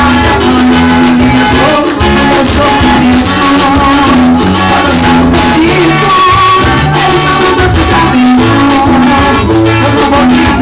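Gospel band music played loud and steady, with a shaker keeping a steady rhythm over held pitched notes.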